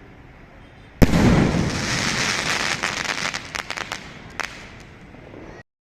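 A 3-inch sky shot firework goes off with a sudden loud bang about a second in. A hissing crackle full of sharp pops follows and fades, with one more pop near the end, and the sound then cuts off abruptly.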